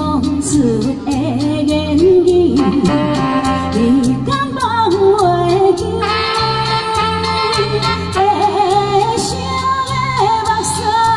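A woman singing a slow ballad into a microphone over an amplified backing track with a steady drum beat and pulsing bass.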